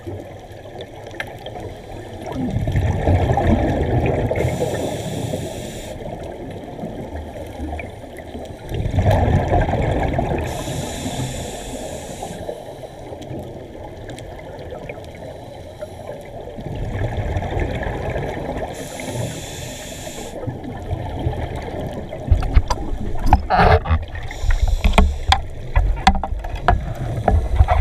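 Scuba regulator breathing heard underwater: three slow breaths about seven to eight seconds apart, each a low bubbling rumble with a hiss alongside. From about twenty-two seconds in, a run of sharp clicks and knocks.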